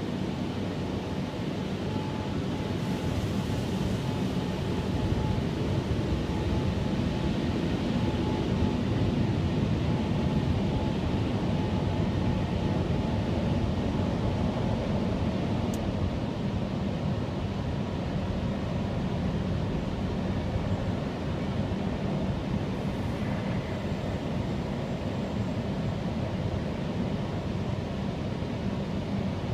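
Automatic car wash machinery running, heard from inside the car: a steady rushing noise, with a faint steady whine that fades out about halfway through.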